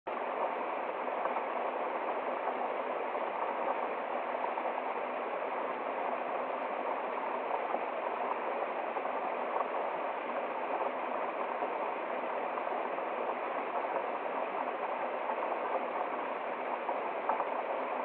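Small woodland waterfall and stream cascading over rocks: a steady, even rush of water.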